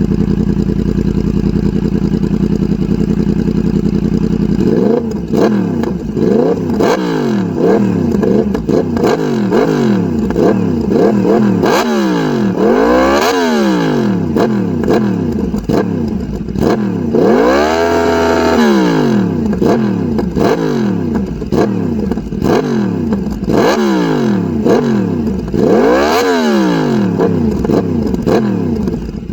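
Yamaha MT-10's crossplane inline-four running through an SC Project stubby silencer with a decat link pipe: idling steadily, then revved over and over in quick blips, a couple held higher, before dropping back to idle near the end.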